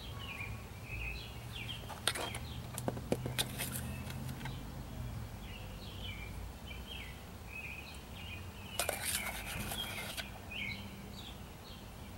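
Small birds chirping repeatedly in the background, with a few sharp clicks and a short scraping rustle about nine seconds in as a plastic measuring scoop knocks and scrapes against a plastic cup of powder.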